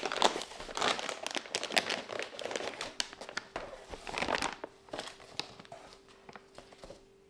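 Plastic packaging crinkling and rustling as it is handled, with many small clicks. It dies down to scattered ticks about four and a half seconds in.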